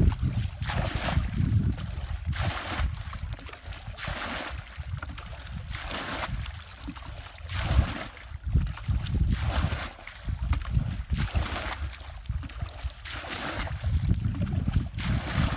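Muddy ditch water being bailed with a plastic bucket, each scoop thrown out in a splash about every one and a half seconds. Wind buffets the microphone underneath.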